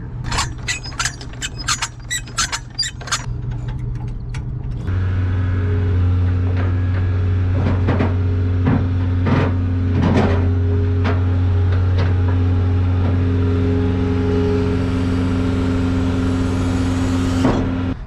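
Old pickup truck's engine running while it is backed up to a trailer, with a rapid run of clanks and knocks in the first few seconds. About five seconds in the engine note gets louder and holds steady, then stops abruptly near the end.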